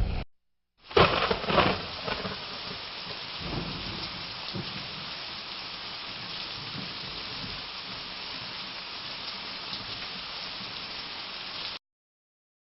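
A thunderclap about a second in, rumbling for about a second, then steady heavy rain falling, which cuts off abruptly near the end.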